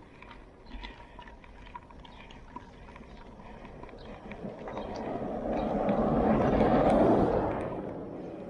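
A road vehicle passing by: steady road noise that swells over a few seconds, peaks about two-thirds of the way in, then fades away.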